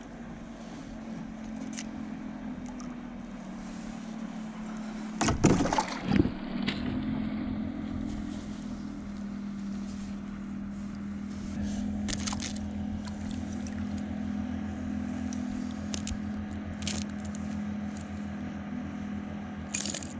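Splashing and loud knocks about five to six seconds in as a small bonito is hauled out of the water into a kayak, followed by a few sharp clicks and taps while it is handled. A steady low hum runs underneath.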